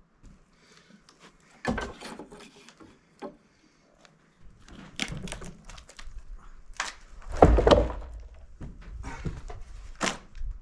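Wood being handled: irregular knocks and thuds with short quiet gaps, the heaviest thud about seven and a half seconds in and a sharp knock near the end.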